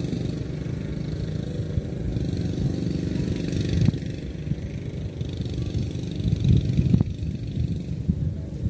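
A motor running steadily, with two clicks, one about four seconds in and one about seven seconds in.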